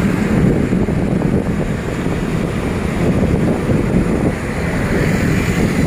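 Wind rumbling steadily on the microphone of a moving vehicle, over the road noise of motorcycle traffic.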